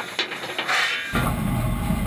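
Steam locomotive: a hiss with a few clanks in the cab, then, about a second in, an abrupt change to the steady low rumble of the locomotive running along the track.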